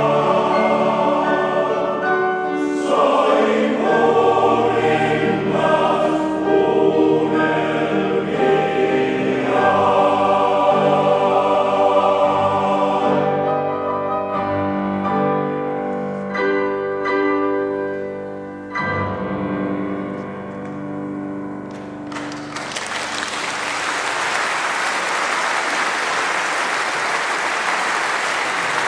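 Male-voice choir singing with grand piano accompaniment; the singing ends about 13 seconds in, and softer closing bars follow with piano chords. From about 22 seconds in, the audience applauds.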